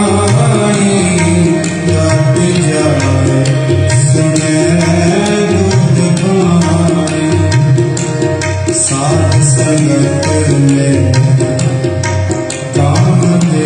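Two harmoniums holding sustained reed chords while a tabla plays a steady rhythmic accompaniment of drum strokes, in Sikh kirtan music.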